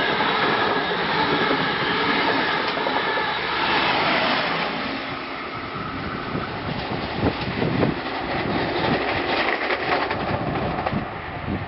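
XPT express passenger train passing at speed: a loud rushing noise of its stainless-steel carriages' wheels on the rails, which drops and thins from about five seconds in as the train draws away down the line, leaving an uneven clatter.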